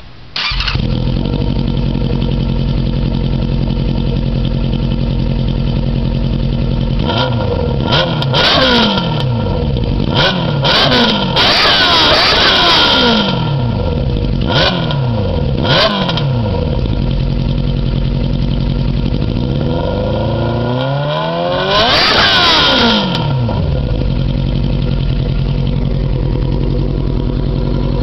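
Yamaha YZF600R inline-four motorcycle engine through a gutted D&D exhaust with its baffles removed, loud and raspy. It starts right at the beginning and settles into a steady idle, then gets a run of quick throttle blips and one longer rev that climbs and falls back, before idling again.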